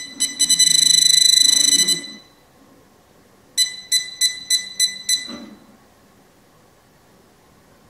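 Deteknix Xpointer metal-detecting pinpointer giving its detection alarm: quick high beeps run together into one continuous tone for about two seconds, the sign of metal right at the probe tip. Its vibration motor buzzes low underneath. After a short pause it beeps again, about four times a second, for a run of some six beeps.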